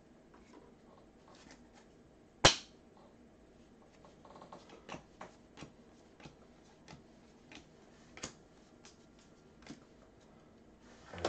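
Football trading cards being handled and flipped through by hand: one sharp snap about two and a half seconds in, then a run of soft ticks and flicks as cards slide off the stack one after another.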